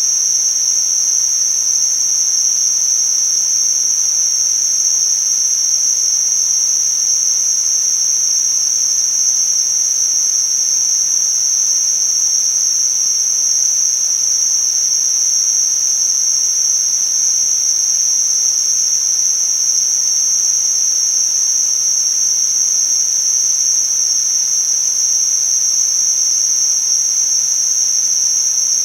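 Tinnitus-masking sound: a steady, unbroken high-pitched hiss pitched in a narrow band, over a fainter, even hiss.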